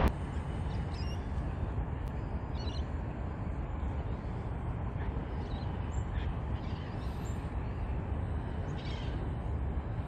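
Several faint, short high calls from black swans swimming close, the clearest near the end, over a steady low outdoor rumble.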